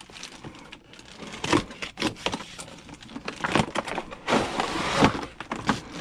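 Cardboard and plastic packaging being handled: a white inner box sliding out of an orange model-train-car box, with irregular scrapes, light knocks and rustles, loudest about four to five seconds in.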